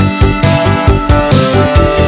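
Upbeat background music with a fast, steady beat.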